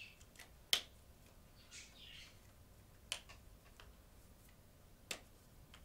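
Marker pens being handled and capped: three sharp clicks about two seconds apart, the first the loudest, with fainter ticks and a brief rustle between them.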